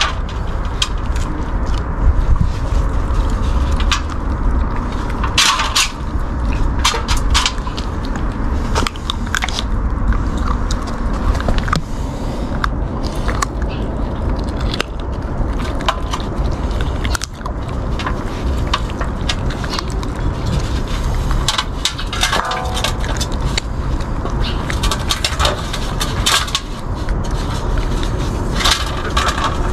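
A puppy eating from a stainless steel bowl: irregular crunching, chewing and licking clicks and scrapes against the metal, over a steady low rumble.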